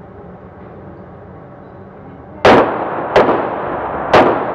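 Three handgun shots at an indoor range, each followed by a long ringing echo off the range walls. The first comes about two and a half seconds in, the next two less than a second apart.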